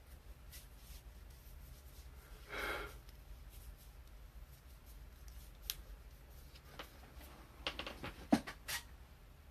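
Faint handling sounds in a small room: a brief soft rub about two and a half seconds in, a single light click, then a short cluster of sharp clicks and taps near the end.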